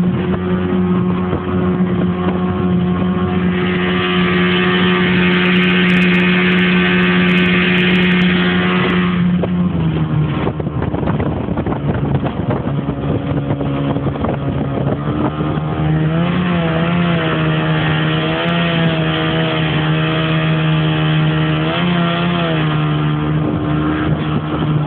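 A 17 ft speedboat's 55 hp outboard motor runs steadily at speed, with a hissing rush over the top from about four to nine seconds in. Around ten seconds in the engine note drops a little, then wavers up and down a few times in the second half.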